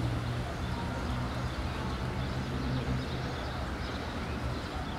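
Diesel locomotive engine running steadily, a low even hum, with faint birdsong above it.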